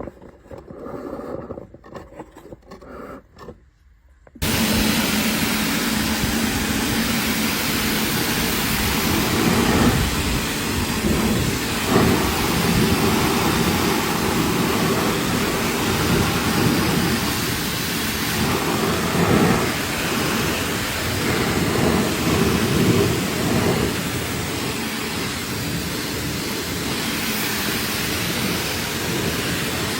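Pressure washer spraying water, switching on suddenly about four seconds in and then running as a steady loud rush.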